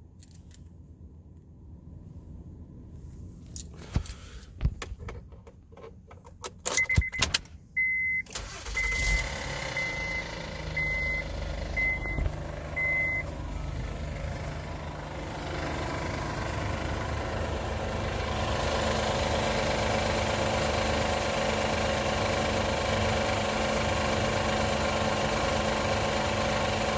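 Honda Pilot V6 cold start: a few clicks and a chime beeping about once a second, then the engine starts and idles. From about two-thirds of the way through, a louder steady hum joins the idle: the strange noise that comes only on a cold engine and goes away after a few minutes.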